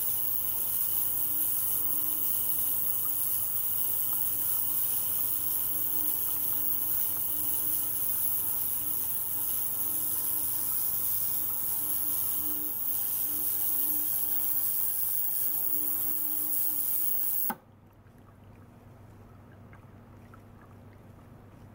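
Ultrasonic cleaner running with a glass jar in its water bath, a steady high hiss over a low hum, while a small pump circulates water through tubing into the jar. About seventeen seconds in the hiss stops suddenly, leaving only a much quieter trickle of water.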